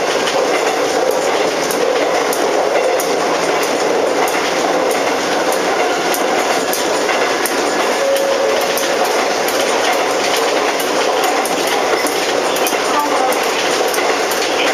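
Running sound of a Konan Railway 7000 series electric car (ex-Tokyu 7000, Hitachi electrical equipment) at steady speed, heard inside the car, with the wheels clicking over rail joints now and then.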